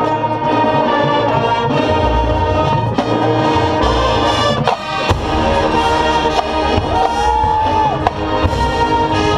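Brass ensemble of a drum and bugle corps playing loud, sustained chords, with low bass notes underneath.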